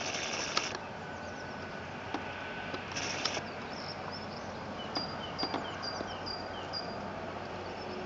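Small bird chirping, a run of about seven quick falling chirps in the second half, over a steady low background hum. Two short hissy high bursts come at the start and about three seconds in.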